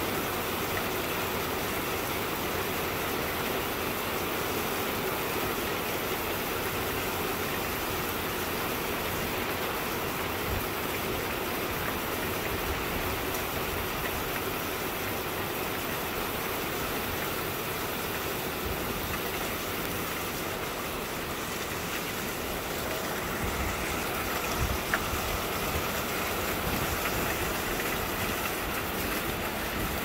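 Steady rain falling on gravel and grass, an even hiss with no let-up.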